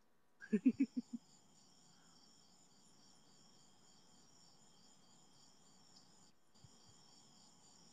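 Faint, steady high-pitched chirping of insects, like a chorus of crickets, with a brief low voice sound about half a second in. The chirping drops out for a moment about six seconds in.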